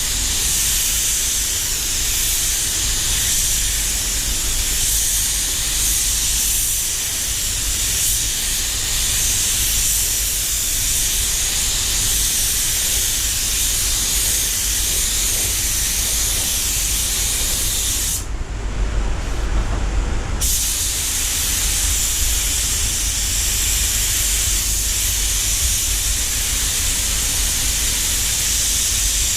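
Walcom Carbon 360 spray gun hissing steadily as it sprays clear coat, over a low rumble. The hiss stops for about two seconds about two-thirds of the way through, then resumes.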